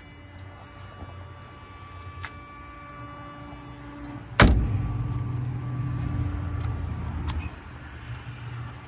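The heavy door of a 1969 Buick Electra 225 coupe is shut, giving one loud thud about four and a half seconds in. About three seconds of low rumble follow.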